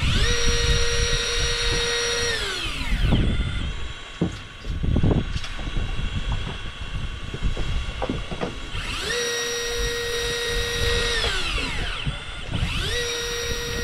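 Electric fishing reel motor winding in line in three spells, each spinning up to a steady whine and winding down again: one in the first three seconds, one about nine seconds in, and one starting near the end.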